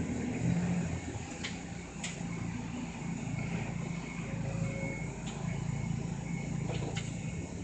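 Route bus running along the road, heard inside the passenger cabin: a steady low engine and road hum, with a few short sharp clicks from the cabin.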